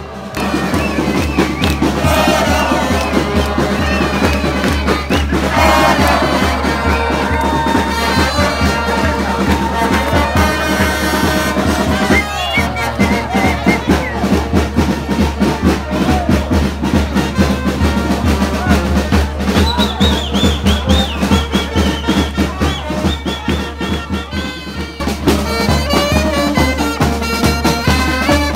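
A small street band of saxophones and brass horns plays a lively tune over a steady beat, with the voices of a crowd mixed in.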